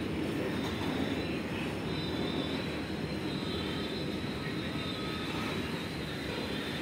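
Open-top freight wagons rolling slowly past: a steady rumble and rattle of steel wheels on rails, with a faint high wheel squeal through the middle.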